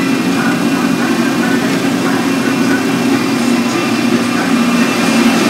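Casey Jr. Circus Train running steadily along its track, heard from one of its riding cars: a steady low engine drone.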